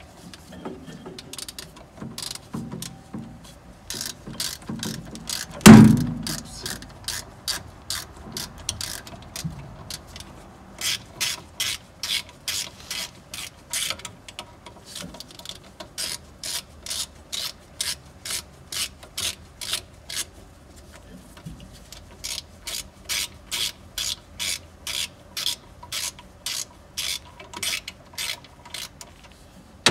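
Ratchet wrench clicking in a steady run of strokes, about two or three a second, as motor mount bolts are run down. There is one loud metallic knock about six seconds in.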